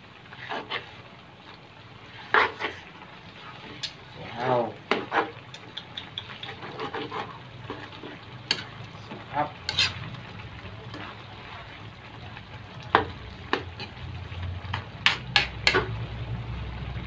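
Metal ladle stirring a thick coconut-milk stew of taro leaves and pork in a metal pan: irregular clinks and scrapes of metal on the pan over a steady simmering hiss.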